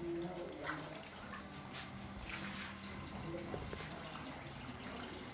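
Water being poured by hand from a small container onto a concrete floor and into a rat burrow: irregular small splashes and drips.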